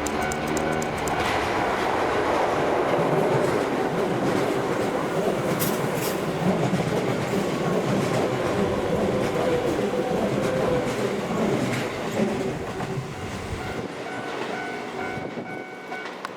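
Keihan 2200 series electric train passing over a level crossing, its wheels clacking over the rail joints in a loud rush that fades away near the end. The crossing's warning bell rings rhythmically at the start and can be heard again as the train recedes.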